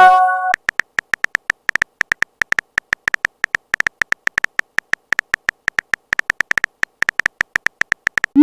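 Phone keyboard typing sound effect: a rapid run of short tapping clicks, about five or six a second, as a text message is typed out. At the start a short chiming tone chord sounds, a message-notification tone.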